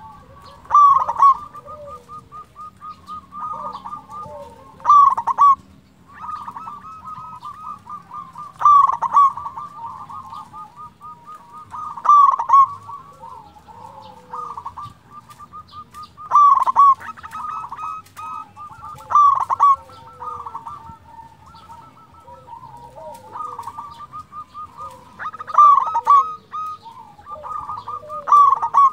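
Zebra dove (local perkutut) song: a near-continuous run of rapid, stuttering staccato coos, rising to a louder phrase every three to four seconds, about eight times.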